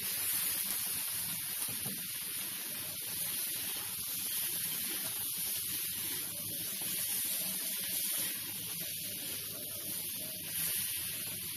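Chicken, apple chunks and chili sizzling steadily in a hot wok as they are stir-fried with a metal spatula.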